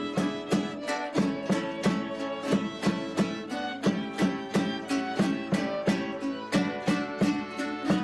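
Folk string-band music: plucked strings strummed in a quick, steady rhythm, about three strums a second, over held melodic notes.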